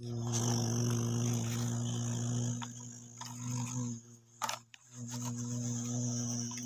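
A steady engine-like drone with a high whine on top, heard in two stretches of a few seconds each. Between them there is a short dip and a single click.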